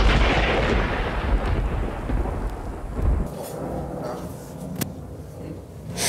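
Rain with a low rumble of wind on an outdoor microphone. A loud rush swells at the start and fades over two or three seconds. About three seconds in it cuts off to quieter indoor room sound with a few light clicks.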